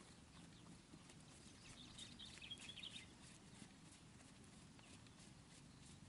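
Faint hoofbeats of a horse moving over an arena's sand footing, heard as soft irregular clicks. A brief high chittering comes about two seconds in.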